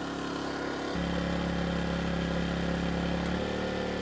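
Erayak 4500PD dual-fuel inverter generator's engine running steadily on gasoline under a light load. Its hum steps up in pitch and loudness about a second in, then eases back a little near the end.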